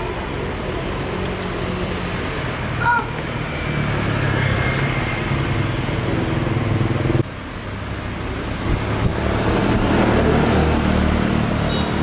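A steady low engine hum with traffic-like noise, louder from about four seconds in and dropping abruptly about seven seconds in before carrying on.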